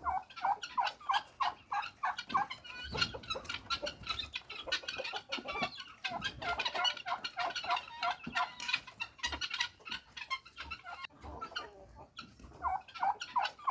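Domestic fowl clucking: a rapid, repeated run of short calls, about five a second.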